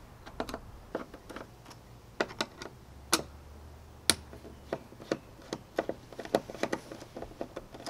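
Phillips screwdriver worked by hand, backing out the screws of a small bracket plate on a kayak deck: a run of irregular light clicks and ticks, a few a second.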